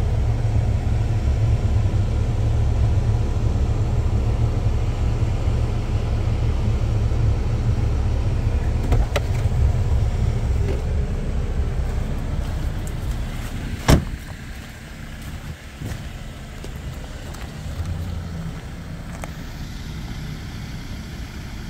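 Jeep Wrangler idling, a steady low rumble heard from inside the cabin. About 14 seconds in a door shuts with a single sharp thud, and the idle goes on, quieter, from outside.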